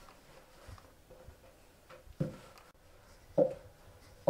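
Wooden rolling pin working thin dough on a wooden board, giving three dull knocks in the second half as the pin bumps the board.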